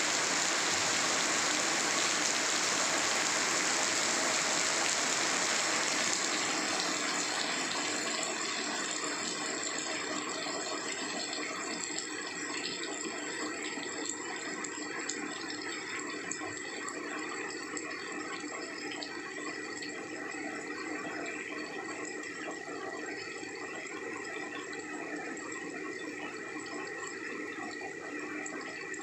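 Heavy rain falling into shallow standing water, a dense steady splashing hiss. About six seconds in it eases a little, and single drop splashes stand out more.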